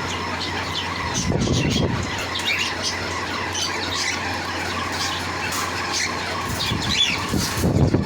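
Pet parrot squawking and chirping in short, repeated calls, over a steady low hum.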